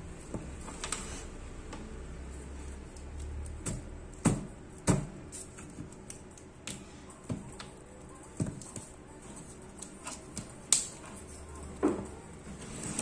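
Scattered, irregular clicks and knocks as a hand works at the frame of a bare LCD monitor panel during its teardown, a few of the knocks sharp.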